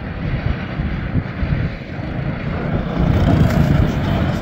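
Engines of small dirt-track race cars running laps on a dirt oval, swelling louder about three seconds in as one car passes close.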